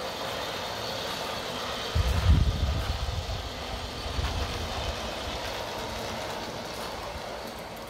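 Aster SBB E3/3 'Tigerli' gauge 1 live-steam tank locomotive running past with its coaches, giving a steady rolling, hissing running noise. A short low rumble comes about two seconds in and fades over the next two seconds.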